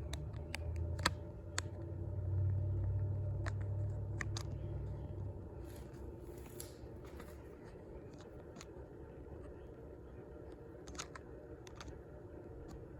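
GE refrigerator running with a low hum that dies away about five seconds in, over a faint steady drone, with scattered light clicks and taps.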